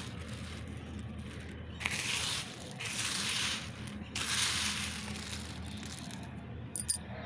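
Dry moong dal bari (vadi) nuggets being scooped and pushed around by hand on a sheet: a dry rustling crunch that comes in three swells.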